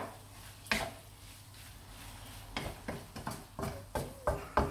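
Wooden spatula stirring and scraping a thick, nearly finished chilli-peanut paste around a non-stick frying pan: one stroke about a second in, a short lull, then a quick run of strokes about three a second.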